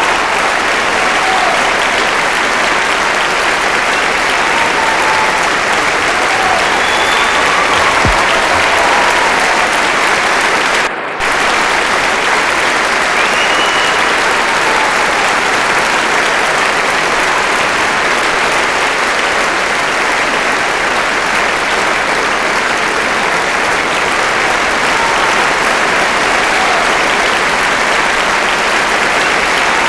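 Large concert-hall audience applauding steadily, with the sound briefly dipping about eleven seconds in.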